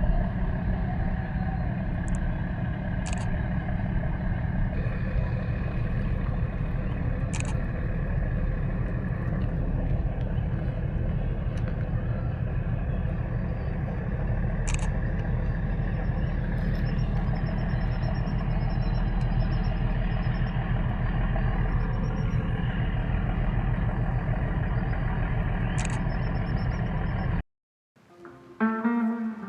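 Steady low background rumble with a few short, sharp clicks scattered through it. Near the end it cuts out abruptly, and acoustic guitar music begins.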